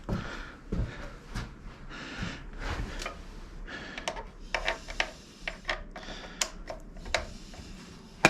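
Wrench working a freshly loosened nut on a motorcycle: irregular metallic clicks and taps, a few a second, with a sharper click near the end.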